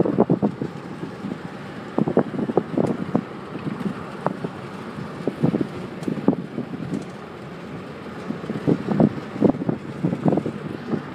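Wind buffeting the microphone in irregular gusts through an open car window while driving, over a steady background of road noise.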